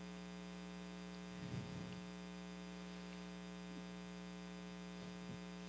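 Faint, steady electrical hum from the sound system, with a faint brief sound about one and a half seconds in.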